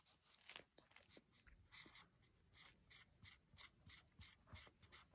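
Faint, uneven dabs and scratches of a liquid chalk marker's tip on a black coloring card, about three strokes a second.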